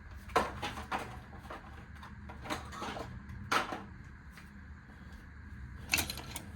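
Screwdrivers being handled and set down, a few scattered knocks and clacks, the sharpest shortly after the start, a little past halfway and near the end.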